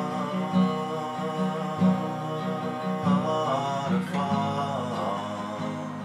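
A man singing one long held note over a strummed acoustic guitar. The note holds steady for about three seconds, then wavers and bends in pitch before fading near the end.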